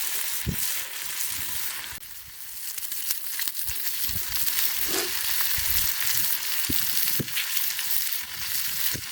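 Bacon frying in a pan with a little maple syrup, sizzling steadily, with a few short low knocks.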